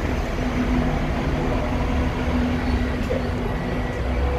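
Hong Kong double-decker tram heard from on board, moving slowly along the track: a steady low rumble with a held hum from the running gear and motor.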